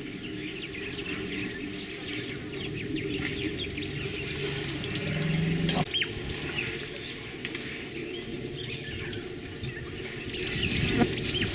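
Wild birds chirping and calling over and over, above a steady low hum. A short low held tone sounds about five seconds in and ends in a sharp click.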